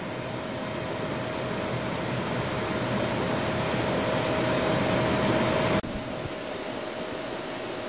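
CNC machining centre face-milling a 7075 aluminium plate: a steady cutting noise with one constant high tone, growing a little louder, then dropping off suddenly nearly six seconds in to a quieter steady hum.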